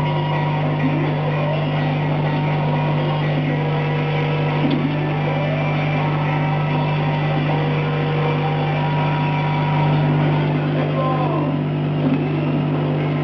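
Stepper motors of a CNC 3020 laser cutter/engraver whining as the laser head moves, in steady tones that start and stop every second or two with short rising and falling glides as it speeds up and slows down, over a constant low hum from the machine.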